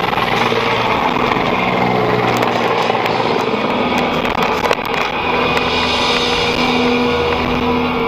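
Steady vehicle noise from a car driving along a highway, with one sharp knock about halfway through.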